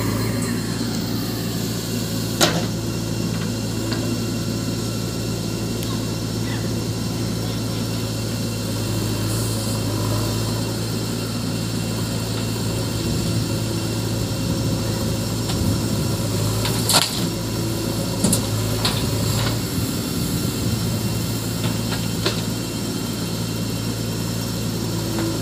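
Diesel engine of a backhoe loader working beside a dump truck, running steadily, with a few sharp knocks of rubble and metal. The loudest knock comes about two-thirds of the way through.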